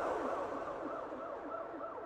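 Police siren in its rapid yelp, the pitch sweeping up and down about three times a second, fading steadily away.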